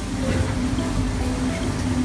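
Background music: short melody notes over a steady low tone.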